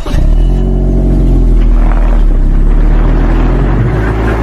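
Motor vehicle engine running steadily and loudly, starting suddenly after the narration ends.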